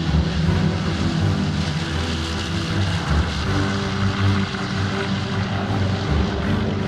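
Boeing B-29 Superfortress's four radial engines at takeoff power during the takeoff roll and liftoff: a steady, loud, low drone with propeller noise.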